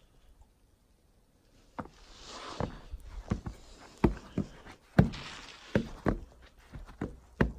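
Footsteps on the snow-covered wooden planks of a suspension footbridge: after a quiet start, a steady walking pace of hollow knocks comes in about two seconds in, with a soft rustling hiss twice between the steps.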